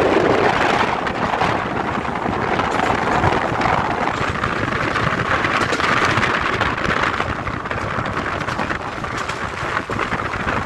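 Passenger train running along a curve, heard from an open carriage window: a steady noise of wheels on the rails, with wind buffeting the microphone.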